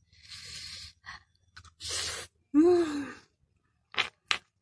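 A person's sharp, breathy gasps and sighs while eating food hot with bird's eye chilies. About two and a half seconds in comes one short groan that falls in pitch, and near the end two short clicks.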